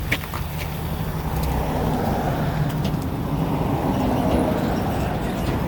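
Car engine running, getting louder about a second in as the car is worked for a suspension check, with a couple of light clicks at the very start.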